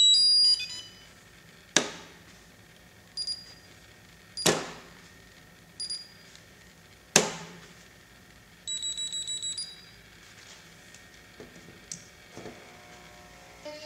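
Immersion RC Vortex quadcopter set to Rotor Sense: its propellers are flicked by hand three times, each flick a sharp click followed by short high beeps from the brushless motors. A quick run of about seven beeps partway through confirms the chosen spin direction.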